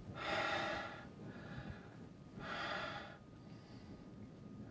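A man breathing heavily: two long, breathy exhalations about two seconds apart, with a third beginning at the very end.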